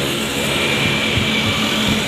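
Bus engine running with steady road noise.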